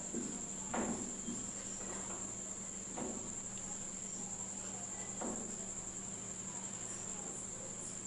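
A cricket trilling steadily at a high pitch over a faint low hum, with three short scrapes of a marker drawing on a whiteboard, about one, three and five seconds in.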